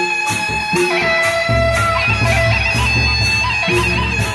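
Sasak gendang beleq gamelan ensemble playing: a bamboo suling flute carries a wavering melody over steady cymbal clashes, a little more than two a second. Heavy low drum beats come in about a second and a half in.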